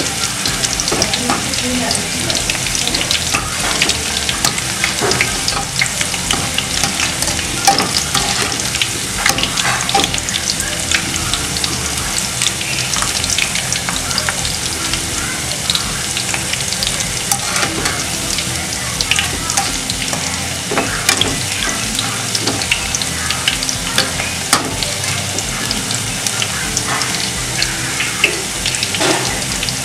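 Batter-coated baby corn pieces deep-frying in hot oil in a kadai on their first fry: a steady sizzle with constant fine crackling pops.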